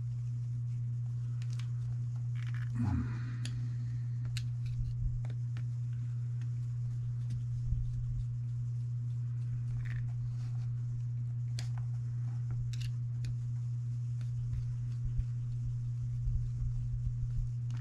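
Small beadlock ring screws on a 1.9-inch RC crawler wheel being tightened with a screwdriver: faint scattered clicks and ticks over a steady low hum.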